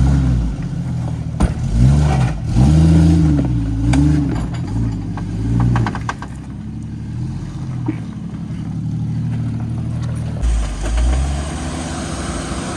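Jeep engine revving up and down in several swells as it crawls over rough trail, then settling to a steadier low run, with a few sharp knocks.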